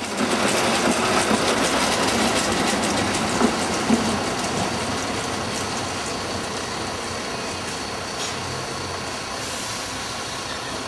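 Narrow-gauge railway carriage rolling on the track, its wheels clicking and clattering over the rails with a couple of sharper knocks about three and four seconds in, loudest at first and fading slowly as it moves away.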